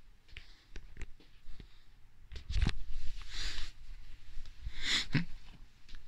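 Handling noise with no vacuum motor running: scattered light clicks, a sharp thump about two and a half seconds in, then two short bursts of rustling.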